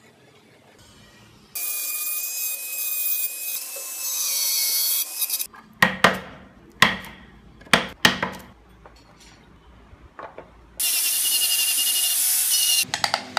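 An angle grinder with a sanding disc whines and rasps against the wood for a few seconds. Then come about five sharp knocks of a chisel being driven into the wooden body. Near the end the grinder sands again for about two seconds.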